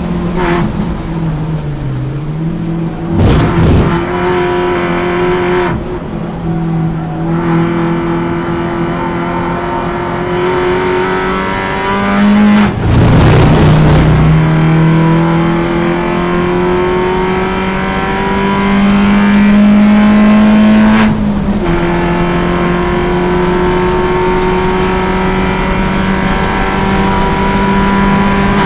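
Alfa Romeo Twin Spark four-cylinder race engine heard from inside the car at racing speed. Its note climbs steadily under acceleration and drops sharply at an upshift about two-thirds of the way through. Two brief, loud rough noises break in a few seconds in and about halfway.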